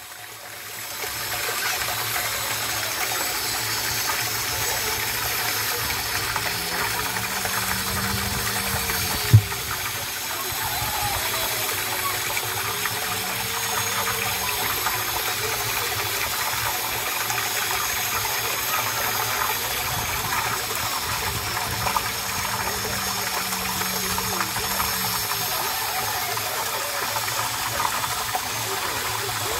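Water gushing steadily from a PVC pipe outlet into a plastic storage tank and splashing onto the water surface. A single sharp click is heard about nine seconds in.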